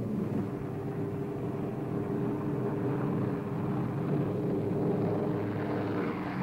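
Steady drone of a B-17 Flying Fortress's four radial piston engines in flight.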